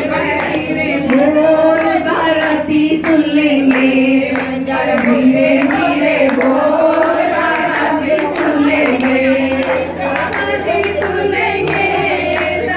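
A group of women singing a wedding song together in chorus, with hands clapping along in a steady beat.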